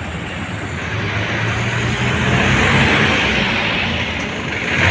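Road traffic passing close by: tyre and engine noise with a low engine hum from a heavy vehicle, swelling to its loudest in the middle.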